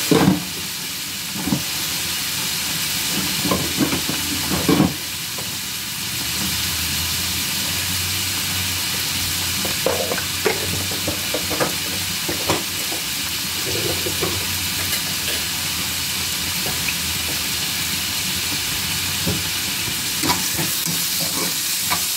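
Diced vegetables frying in a skillet: a steady sizzle throughout, with scattered knocks and clinks of utensils, a sharp one right at the start and a cluster around ten to twelve seconds in. Near the end the pan is stirred with a spoon.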